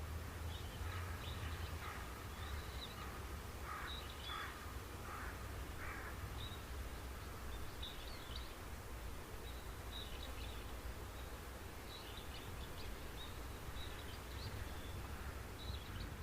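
Birds calling, with short calls coming every second or so, over a steady low rumble.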